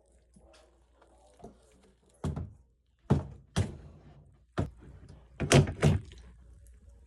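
About six knocks and thumps from refrigerator parts being handled and fitted during reassembly, the loudest close together in the second half.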